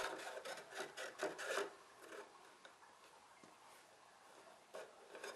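Wooden dowel handle rubbing and scraping in the holes of a wooden toolbox's end pieces as it is pushed and twisted through, a quick run of short strokes for under two seconds. It then falls faint, with a brief scrape again near the end.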